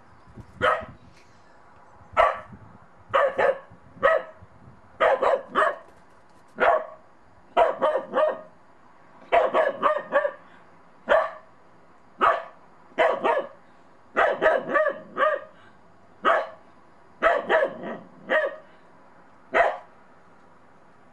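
Bedlington terrier puppy barking over and over, in single barks and quick runs of two to four, wary of a small snowman.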